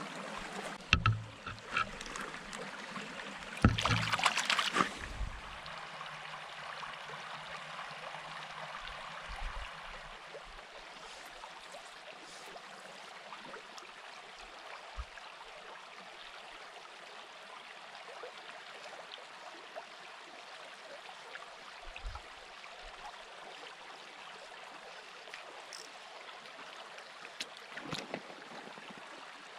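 Small stream running over stones close to the microphone, a steady watery rush. A few knocks and splashing in the first five seconds, loudest about four seconds in.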